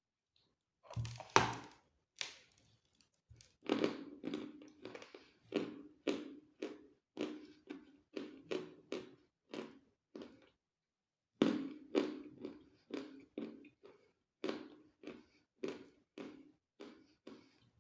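A person biting and chewing crunchy chalk close to the microphone: a loud bite about a second in, then a run of crisp crunching chews about two a second, with a short pause just past halfway.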